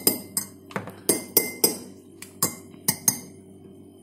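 A metal teaspoon clinking against kitchenware: about ten sharp, ringing clinks at an uneven pace, stopping about three seconds in.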